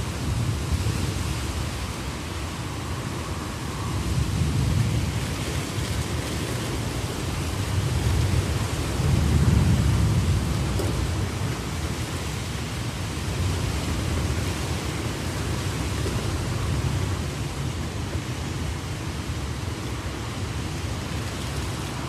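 Heavy rain falling steadily, with a low rumble underneath that swells several times and is loudest about nine to ten seconds in.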